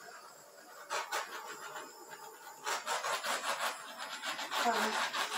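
Intermittent scraping and rubbing: a couple of strokes about a second in, then a denser run of scratchy strokes from about the middle on.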